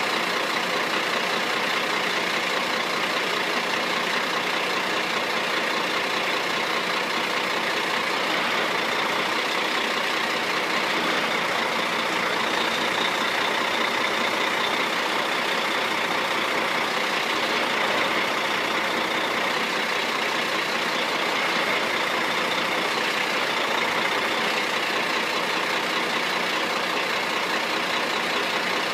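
Crane truck's diesel engine running steadily at an even level.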